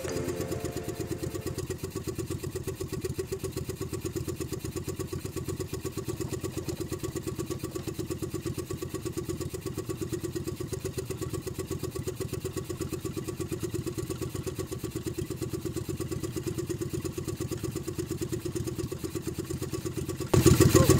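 Small outrigger fishing boat's engine idling with rapid, even pulsing. Near the end it suddenly gets louder.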